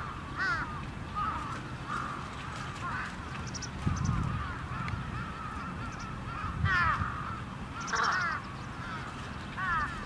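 Several crows cawing, short arching calls that repeat and overlap, the loudest bunches about seven and eight seconds in. A low thump about four seconds in.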